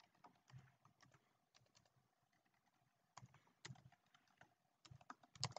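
Faint typing on a computer keyboard: irregular keystroke clicks, a few louder ones near the end.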